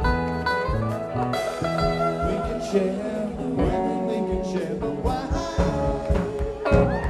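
Live rock band playing: an electric guitar takes the lead with sliding, bending notes over a steady drum beat.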